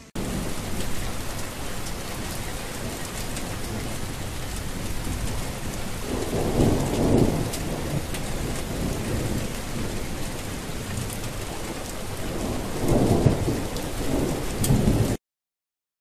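Steady heavy rain with two rolls of thunder, one about six seconds in and one near the end; the sound starts abruptly and cuts off suddenly about a second before the end.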